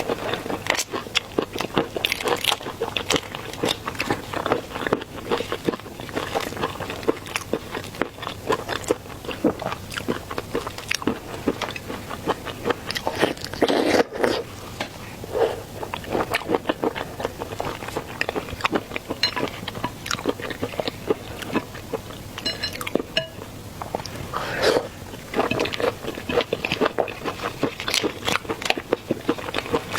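Close-miked eating of seafood: continual wet chewing and biting, with many crunchy clicks and crackles.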